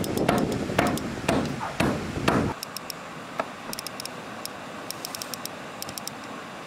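Repeated sharp knocking strikes, about three a second and slightly irregular, that stop abruptly a little over two seconds in. A quieter background with faint high clicks follows.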